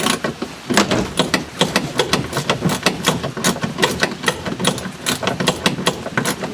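Hand socket ratchet clicking rapidly and fairly steadily as a bolt is worked out, several clicks a second.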